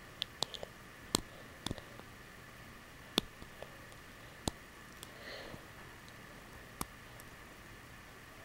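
Plastic Lego pieces clicking as they are handled and fitted together: a series of irregular sharp clicks, some in quick clusters, over a faint hiss.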